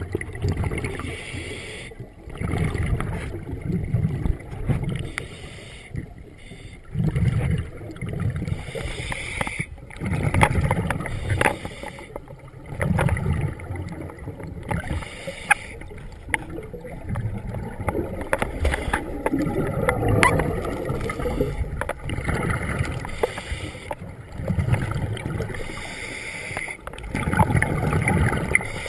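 Scuba diver breathing through a regulator, recorded underwater: hissing inhalations alternating with rumbling bursts of exhaled bubbles, in a slow rhythm of one breath every few seconds.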